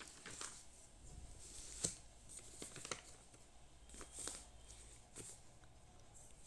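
Faint room tone with a few scattered soft clicks and rustles, the sharpest click about two seconds in.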